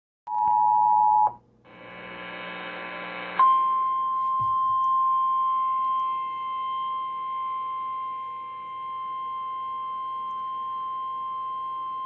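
Emergency Alert System alert tones through a TV speaker. First a brief two-tone attention signal, then a short harsher buzz. Then a single steady warning tone, like the NOAA Weather Radio alarm, is held for about nine seconds ahead of the synthesized voice warning.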